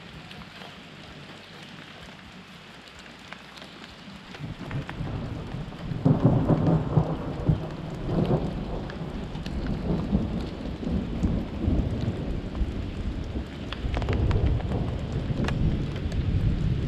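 Rain falling, with small drop ticks. About four seconds in a deep rumble of thunder builds, swells, and rolls on.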